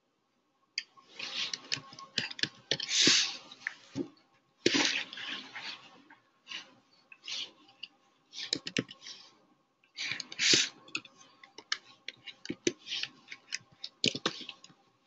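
Typing on a computer keyboard: irregular key clicks, with several short hissing noises in between.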